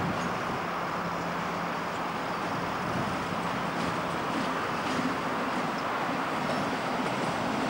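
Class 60 diesel-electric freight locomotive running slowly past with its wagons: a steady engine drone under an even hiss of rolling noise.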